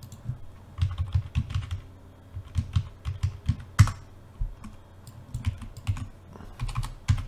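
Computer keyboard typing in short bursts of keystrokes, with one louder key press a little under four seconds in.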